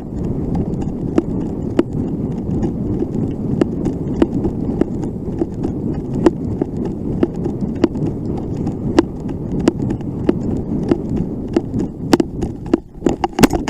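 Running footsteps and rattling gear on a shooter's body-worn camera, with a steady rumble of movement and a sharp knock about every half second or so, and a quick cluster of sharper knocks near the end.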